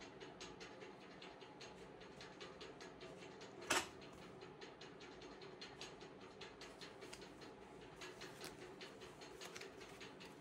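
Faint rapid ticking, about four ticks a second, over a low hum. A little under four seconds in comes one sharp clack, the loudest sound, as a gas stove's metal pan support is set down.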